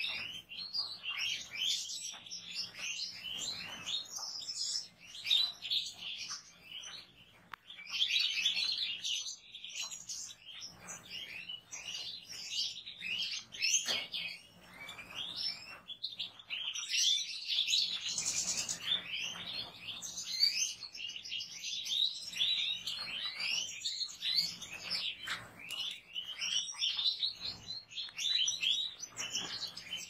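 A flock of European goldfinches chirping and twittering continuously, many quick overlapping calls and trills at once.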